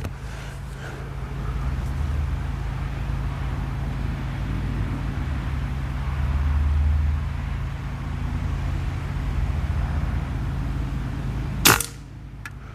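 A single airgun shot near the end, one sharp crack, over a steady low rumble.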